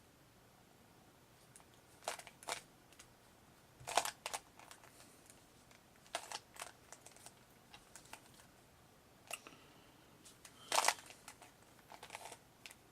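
Plastic Rubik's Cube layers being turned by hand: short bursts of clicking and clacking, a few turns at a time with pauses between.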